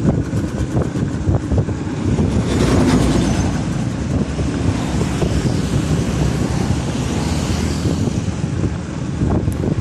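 Vehicle travelling along a road: a steady low rumble with many small knocks, swelling briefly about three seconds in.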